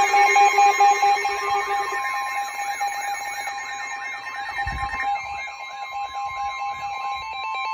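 Several emergency alert tones sounding over one another for a flash flood warning: fast pulsing beeps, a warbling tone that rises and falls several times a second, and steady high tones. A lower pulsing beep drops out about two seconds in.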